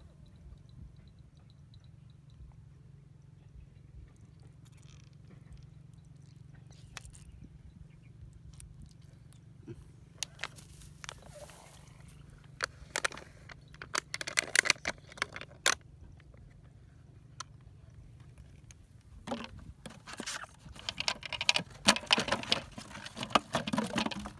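Thin plastic water bottles being handled: crinkling and crackling in two busy stretches, about halfway through and again near the end, over a low steady rumble.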